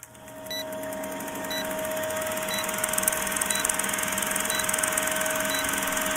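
Film-projector countdown sound effect: a steady mechanical whirr and rapid clatter with a hum, and a short high pip about once a second as the countdown numbers tick down.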